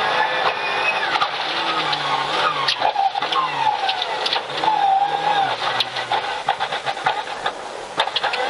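Rally car engine heard from inside the cabin, its note rising and falling as the car brakes and downshifts from fourth to second gear for a junction. Sharp cracks and clatters come throughout.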